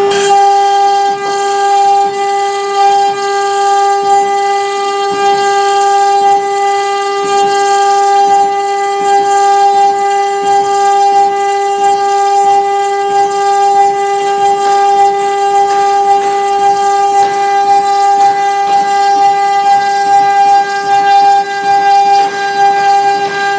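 3 kW water-cooled CNC router spindle running with a steady high whine while its bit engraves MDF, with uneven rasping cutting noise over the whine.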